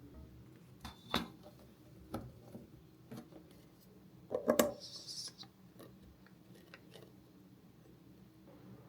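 Light clicks and knocks of kitchen items being handled, a few single taps about a second apart and a louder cluster of knocks about halfway through, followed by a brief hiss.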